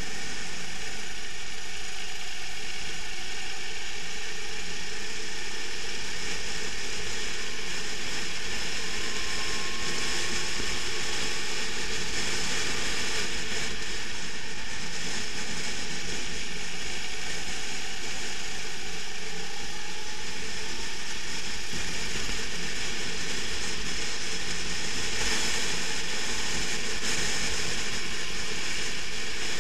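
Onboard sound of a racing rental kart: its engine running hard continuously, pitch rising and falling through the corners, under a dense mechanical rattle.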